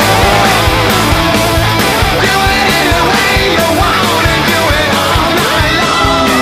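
Loud background music with a fast, steady beat.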